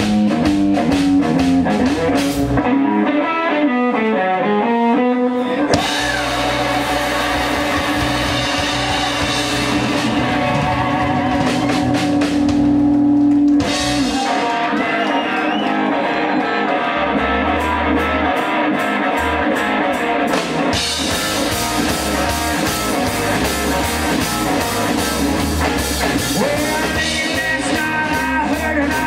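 Band playing an instrumental break: electric guitar lines over drum kit and bass, with a long held guitar note in the middle before the full band comes back in.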